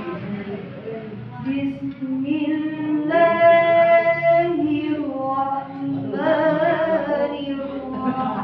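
A young reciter's voice in melodic Qur'anic recitation (tilawah), drawn out in long sustained, ornamented notes; the loudest is a steady held note about three seconds in, followed by wavering melodic turns.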